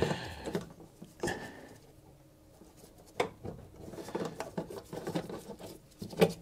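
Socket driver working the bolt of the radiator's top mounting bracket, loosening it so the radiator can move a little. A few sharp metallic clicks and knocks, with lighter scattered ticks between.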